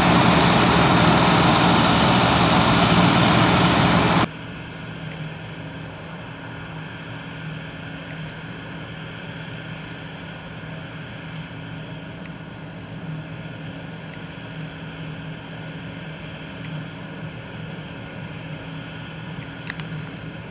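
Harvest machinery engines running: a loud, dense noise for about four seconds, then an abrupt cut to a quieter, steady engine hum with a low drone.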